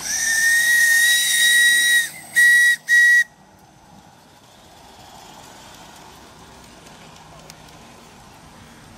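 Model steam locomotive's whistle: one long blast of about two seconds, then two short toots, a steady high tone with a hiss over it.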